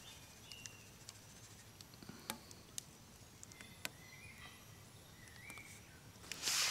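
Quiet woodland background with scattered faint bird chirps and a few soft clicks. A loud rustling starts near the end.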